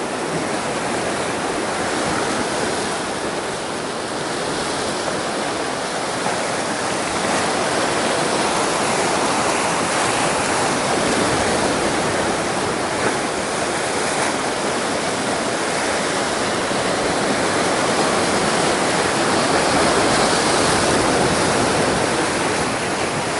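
Sea surf breaking and churning against coastal rocks: a continuous rush of foaming water that swells and eases slowly.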